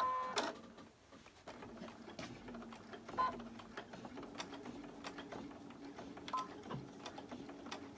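Computerized sewing machine giving a short electronic beep, then stitching at a slow, steady pace, with the motor humming and the needle ticking rapidly. Two more brief beeps sound a few seconds in and again near the end.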